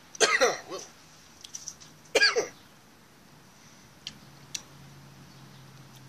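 A man coughs twice, about two seconds apart, each a short voiced cough falling in pitch. Two light clicks follow near the end.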